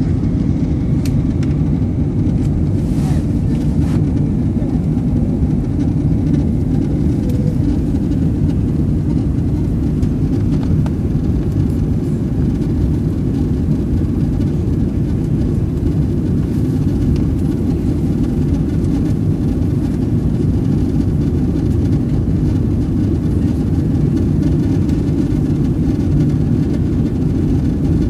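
Steady low cabin rumble of an Airbus A380 in its climb after takeoff, engine and airflow noise as heard inside the cabin at a window seat. The aircraft's engines are Rolls-Royce Trent 900s.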